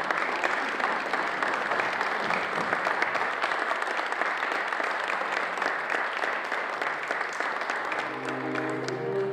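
Audience applauding steadily. About eight seconds in, the clapping dies away and a string quartet of two violins, viola and cello begins playing sustained bowed notes.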